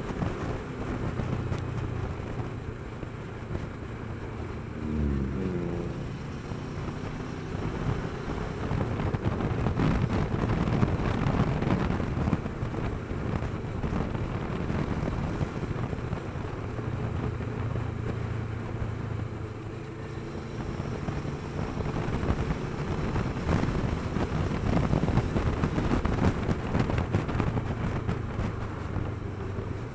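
Kawasaki Versys 650's parallel-twin engine running at road speed under wind rush on the microphone, with a short rising tone about five seconds in.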